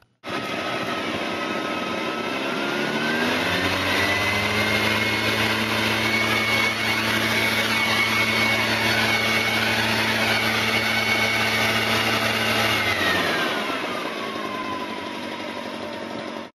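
44 cc backpack leaf blower engine running, revving up from a low speed to full throttle a few seconds in with its fan whine rising in pitch. It holds steady at full speed, loud enough to read 99.6 dB on a sound level meter, then drops back to idle near the end before cutting off abruptly.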